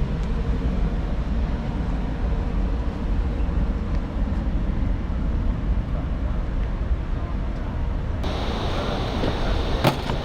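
Steady low rumble. About eight seconds in it changes abruptly to a brighter, hissier background, with one sharp click near the end.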